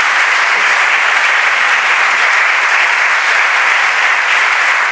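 Audience applauding, a steady round of clapping from a seated crowd.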